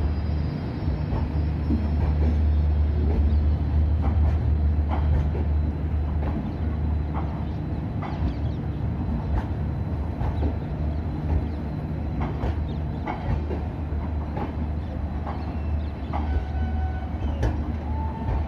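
Indian Railways passenger coaches rolling slowly past: a steady low rumble with sharp wheel clacks about once a second as the wheels cross rail joints.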